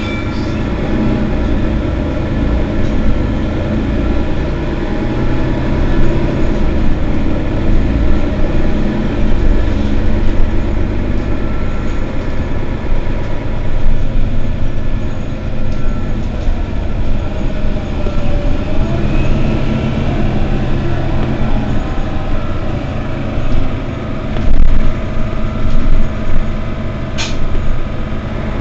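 Mercedes-Benz Citaro city bus running, a dense low drivetrain and road rumble with rattles. A short whine glides in pitch about two-thirds of the way through, and there is a sharp click near the end.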